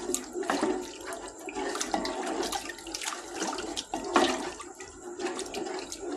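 Spoon stirring milk into a butter-and-flour roux in a cooking pot for white sauce, the liquid sloshing while the spoon scrapes and knocks against the pot in quick, irregular strokes.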